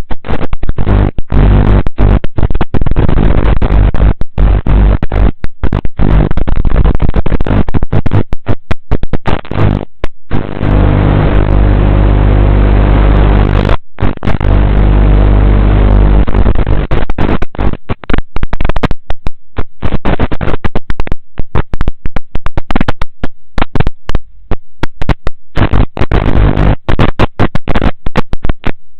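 Loud, harsh buzzing static with a steady low hum, breaking up again and again in brief dropouts.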